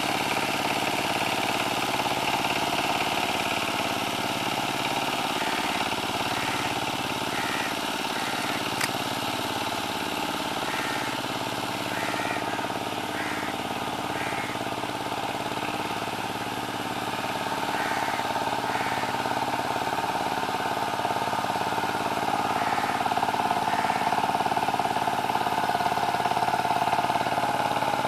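KAMCO power tiller's single-cylinder diesel engine running steadily under load while puddling a flooded paddy field, getting somewhat louder near the end.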